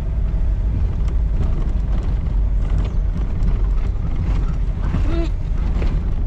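Vehicle driving over a very rough road, heard from inside the cabin: a steady low engine and road rumble with frequent knocks and rattles as it jolts over the bumps.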